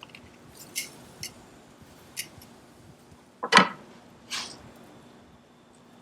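Cooking utensils clinking and tapping on a grill: a few light metal clicks, the loudest about three and a half seconds in, followed by a short scrape.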